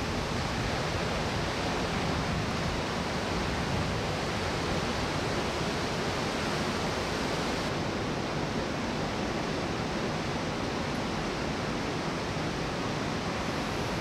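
Large ocean surf breaking, heard as a steady, even rushing noise with no single crash standing out.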